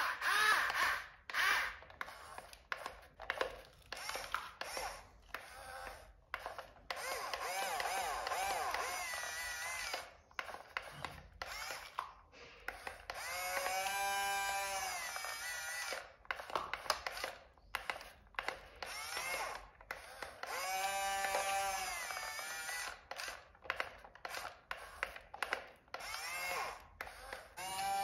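Small electric motor of a radio-controlled toy vehicle whining in spurts, its pitch rising and then falling each time, among rapid clicks and rattles of plastic gearing.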